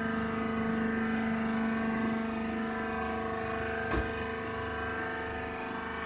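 Horizontal hydraulic baler's power unit running with a steady, even-pitched hum, with one brief knock about four seconds in.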